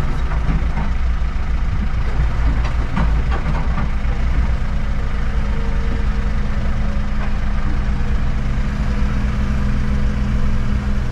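Motor vehicle engine running at a steady idle, a continuous low rumble; about four seconds in, a steady droning hum at a higher pitch joins it.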